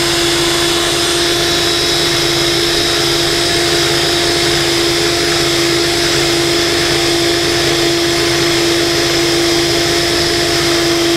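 DeWalt cordless drill running steadily at full speed with an unbroken whine, spinning an e-cigarette's tube while it is cut open.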